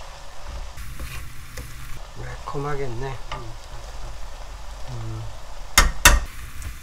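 Squid and vegetables sizzling in a hot frying pan while a wooden spoon stirs and scrapes them through red pepper flakes. Two sharp knocks near the end.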